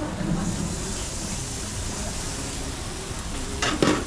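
Chicken wings sizzling on a barbecue grill, a steady hiss, with a sharp knock near the end.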